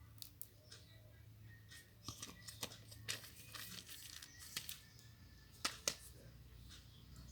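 Faint, irregular rustling and crinkling with small clicks, from craft materials such as ribbons and decorations being handled and shifted about.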